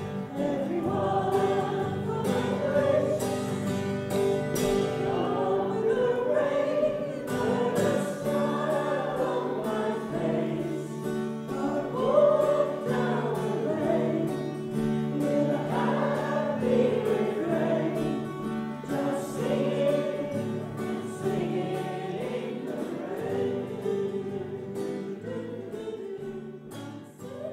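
Amateur community choir of people living with aphasia singing together in unison, fading out near the end.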